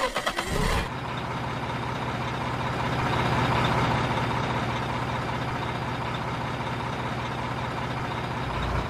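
Truck engine sound, a few quick knocks in the first second and then running steadily with a low hum.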